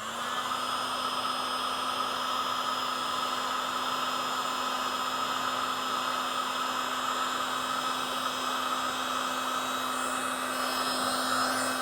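Electric heat gun switched on and blowing steadily with an even fan-motor hum, shrinking heat-shrink tubing over a freshly crimped wire connector.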